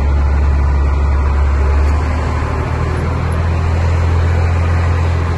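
Truck's diesel engine running at low speed as the truck manoeuvres, heard from inside the cab as a steady low drone whose note shifts slightly about two seconds in.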